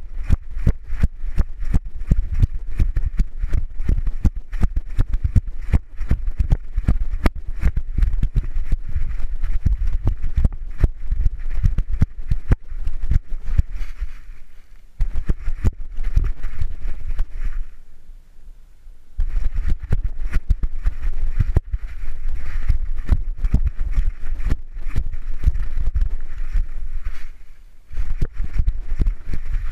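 GoPro strapped to a running dog's back, jostled with every stride: rapid, irregular knocking and rubbing over a low rumble. It stops for about a second a little past the middle, then resumes.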